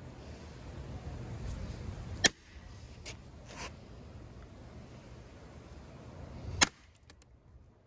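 Hammer striking a wood chisel set into a wooden casement stile to cut a hinge mortise: two sharp strikes about four seconds apart, with two lighter taps between them.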